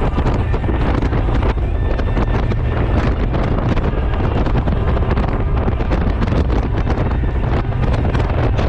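Wind buffeting the microphone on a moving Honda Gold Wing motorcycle: a steady, loud rumble of wind and road noise that never lets up.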